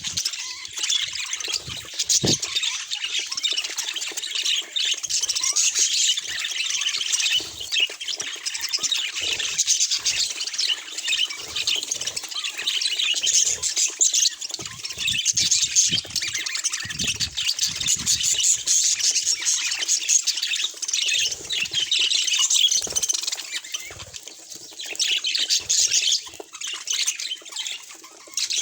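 Budgerigars chattering continuously, a dense stream of quick warbles, chirps and squawks.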